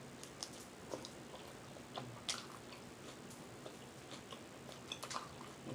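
A person chewing food quietly, with scattered small mouth clicks at irregular intervals.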